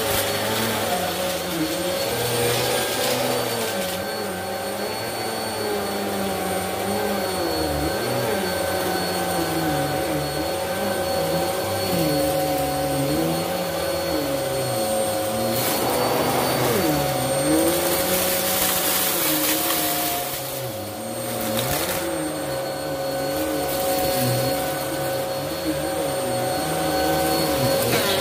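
Bissell upright vacuum cleaner running on carpet, a steady motor whine with a lower pitch that wavers as it is pushed back and forth. From about halfway through there is a harsher, crackling stretch lasting a few seconds as it sucks up a pile of small coloured pieces.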